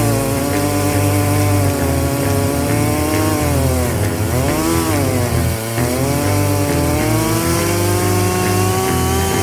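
Chainsaw engine running hard as it cuts through a log on a gantry chainsaw mill, with a steady cutting hiss. Its pitch sags as the saw loads up, about four to five seconds in, then recovers.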